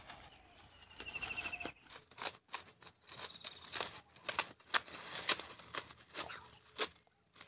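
Plastic courier mailer being opened: the plastic rustling and crinkling, with many short, sharp crackles.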